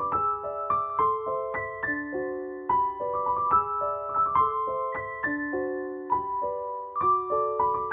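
Background piano music: a gentle melody of single notes and chords struck a few times a second, each ringing on as it fades.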